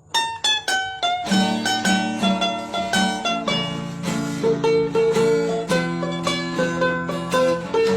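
Music played on a plucked string instrument, quick picked notes over chords, starting right after a brief silence.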